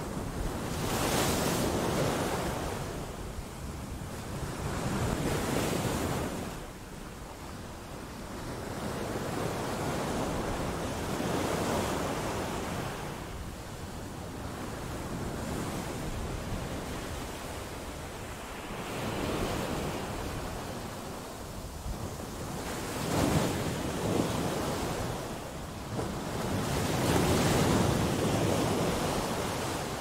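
Sea waves breaking against rocks: a rush of surf swells and falls back every few seconds, with the heaviest breaks near the end.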